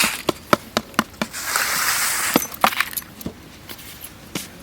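Cooking utensils clinking, about a dozen short sharp taps, with a brief scraping rustle in the middle as an ingredient is added to the batter.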